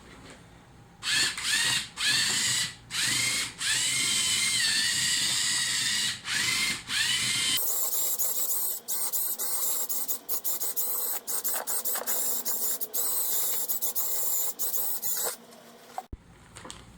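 Small electric motors whining in short stop-start bursts, their pitch shifting as they speed up and slow down. About halfway through, the sound turns choppier, with many sharp clicks.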